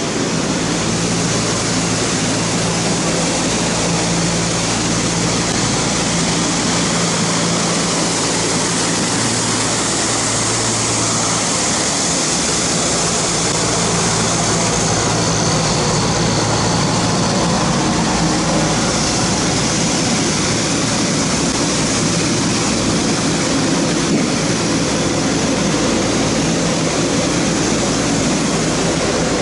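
A compact Boschung S3 street sweeper runs with a loud, steady mechanical rush. A low hum fades about twelve seconds in, leaving a brighter, even hiss.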